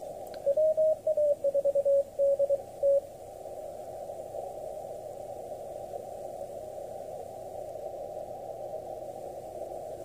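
Icom IC-7300 receiver in CW mode, tuned across a Morse code signal: a single beeping tone keyed in dots and dashes for about two and a half seconds, its pitch shifting slightly at the start. Afterwards only band hiss remains, heard through the narrow CW filter.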